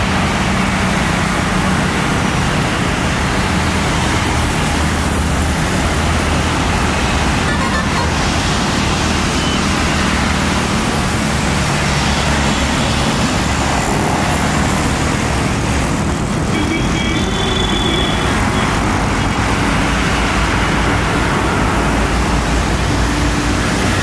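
Jet engines of a departing Boeing 757 freighter, a loud, steady rushing noise with no let-up.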